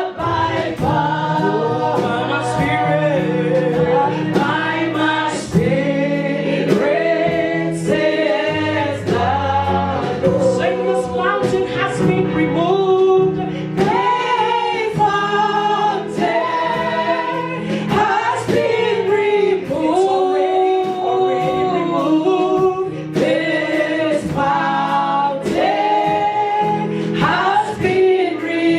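Gospel worship song sung by a choir of male and female voices over a band, with drums keeping a steady beat.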